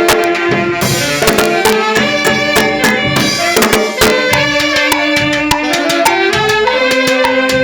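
A banda orquesta, a brass band, is playing. Held horn notes carry the tune over busy drum and cymbal beats.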